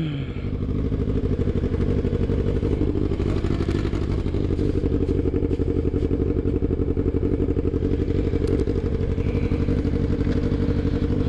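Yamaha sport motorcycle engine idling steadily.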